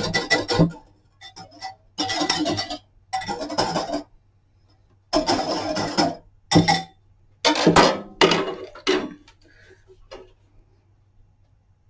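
Wire whisk beating soapy water in a ceramic bowl, its wires clinking rapidly against the bowl in several bursts of a second or two, whipping dishwashing liquid into a froth. The whisking stops about ten seconds in.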